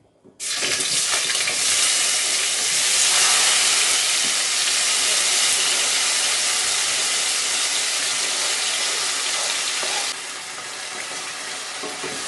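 Chopped onion, tomato and Scotch bonnet pepper hitting hot oil in a stainless steel pan: a loud sizzle starts suddenly about half a second in and keeps on, easing a little about ten seconds in.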